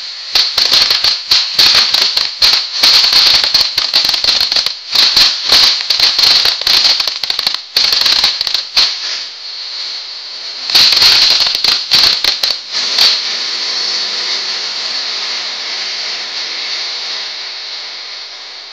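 Ground fountain firework spraying sparks with a steady hiss. Dense, rapid crackling breaks over the hiss for most of the first nine seconds, stops, and returns for about two seconds a little past the middle. After that only the hiss remains, fading slowly.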